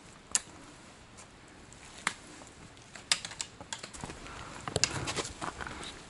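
Footsteps on a rocky mountain trail with irregular sharp clicks of trekking-pole tips striking stone, and a cluster of clicks and scuffing about five seconds in.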